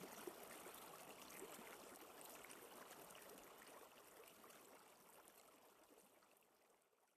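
Faint running water, like a small trickling stream, with a fine patter of small ticks, fading out steadily toward the end.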